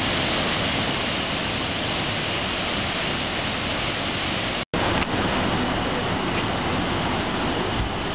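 Waterfall cascades rushing over rocks: a steady, loud roar of falling water with a very brief break about four and a half seconds in.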